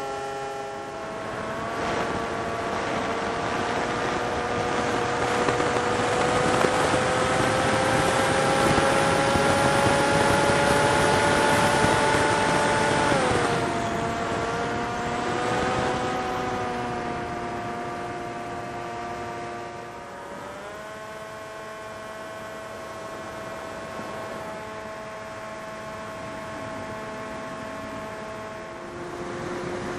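FPV quadcopter's brushless motors whining as the throttle changes: the pitch climbs slowly, drops sharply about halfway through, and shifts again about two-thirds of the way in.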